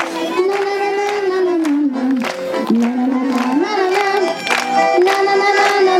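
A group of children singing a wordless 'na-na-na' melody together, unaccompanied because the backing track has failed.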